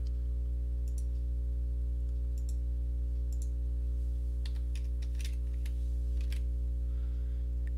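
Scattered computer mouse clicks and keyboard keystrokes, about ten in all, as a dimension value is clicked and typed in, over a steady low hum.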